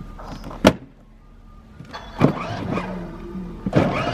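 A plastic toy-car door knocks shut about half a second in. Then, about two seconds in, a child's battery-powered ride-on Mercedes ML63 AMG starts moving, its small electric drive motors whirring as its plastic wheels roll over concrete.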